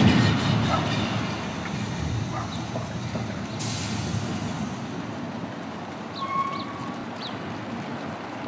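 Steady rumble of passing road traffic, loudest at first and fading over the first several seconds, with a brief hiss about three and a half seconds in and a few faint high chirps later on.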